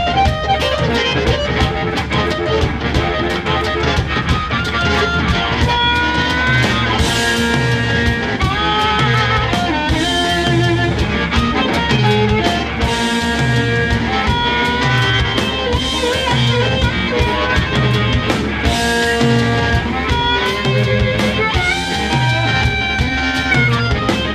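Live electric blues band playing an instrumental: amplified harmonica cupped to the microphone plays held notes that bend upward, over electric guitar and a drum kit with a repeating bass line.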